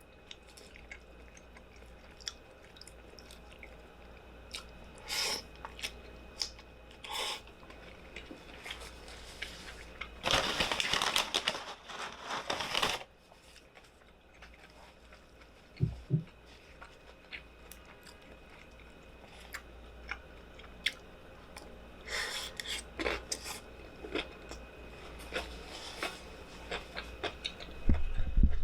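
Close-up mukbang eating sounds from a Chipotle burrito bowl: chewing, with scattered clicks and taps of a utensil. A loud stretch of rustling and scraping lasts about three seconds, starting about ten seconds in, and shorter bursts come later.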